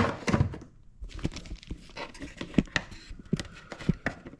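Plastic top cover of an old Bosch vacuum cleaner being closed onto its 3D-printed replacement brackets. A loud knock comes first, then a run of short plastic clicks and knocks as the cover is pressed down and seated.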